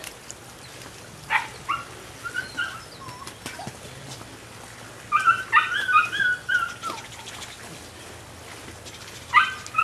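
Belgian Malinois puppy whining in short high-pitched cries: one about a second in, a rapid string of them from about five to seven seconds in, and another near the end.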